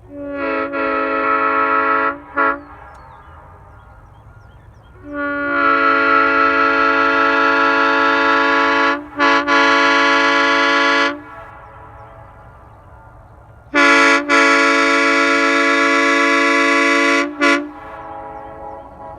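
Round-base Nathan Airchime M3 three-chime train horn from 1951 blown on compressed air, sounding a steady chord. A blast of about two seconds and a quick toot, then a long blast of about six seconds broken twice briefly, then a blast of about three and a half seconds.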